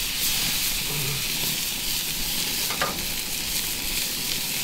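Venison-and-beef-fat burger patty sizzling steadily on a hot cast iron griddle, with one short click about three seconds in.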